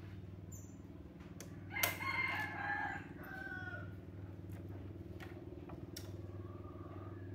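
A rooster crowing once, about two seconds in, the call falling away at its end. Under it runs a steady low hum, with a few faint clicks later on.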